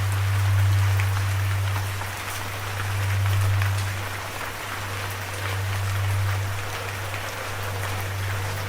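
Steady rain falling, with individual drops tapping through the hiss. Under it a low musical drone swells and fades every couple of seconds and steps up in pitch near the end.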